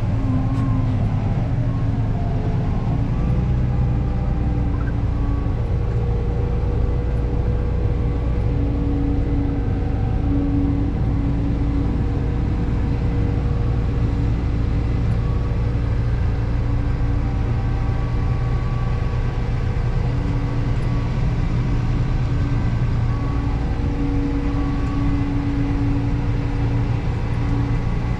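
Large diesel farm machinery engine running steadily under load, a continuous low drone heard from inside the cab.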